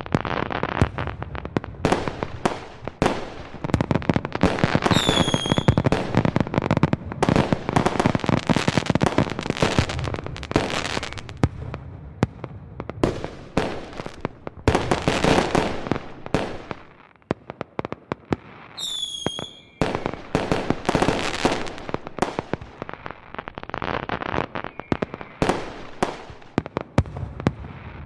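Fireworks going off: dense, rapid crackling and popping bursts, with a short whistle twice, about five seconds in and again near nineteen seconds.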